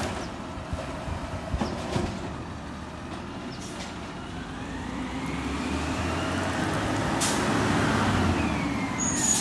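Garbage truck's diesel engine coming closer and growing louder along the wet street. Its engine pitch rises and then eases off as it draws near.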